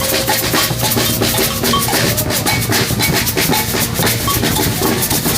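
Batucada-style percussion ensemble drumming a fast, steady rhythm, with deep bass drums under quick, dense strokes from snare-type drums.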